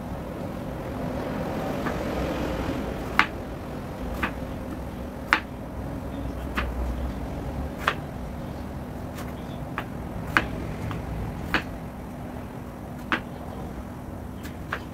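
Kitchen knife cutting eggplant into chunks on a wooden cutting board: about ten sharp, irregular knocks as the blade hits the board, over a steady low background hum.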